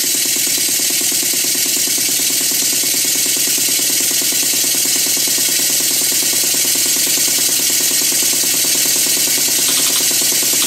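Model Mary beam engine running flat out, its exhaust beats so fast they merge into a rapid, even chuffing over a steady hiss of air. It runs evenly with its big-end cotter pin freshly tightened.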